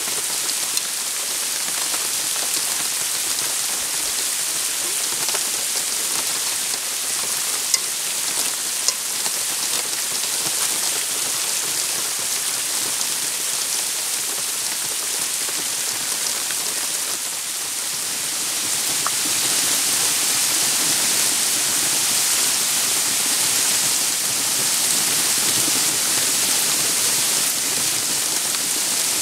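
Steady rain falling on the forest's trees and leaf litter, with a couple of louder single drops hitting close by about eight and nine seconds in. It gets a little louder about two-thirds of the way through.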